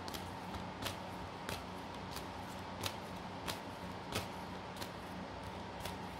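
Faint, evenly spaced ticking, about three ticks every two seconds, over a steady low hum.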